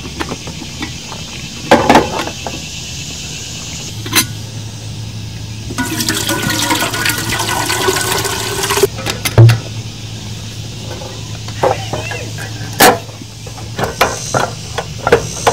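Water poured from a plastic bottle into a stainless steel coffee percolator pot for about three seconds. Sharp metal clanks come from the percolator's basket and lid being handled before and after the pour, with a few smaller clicks near the end.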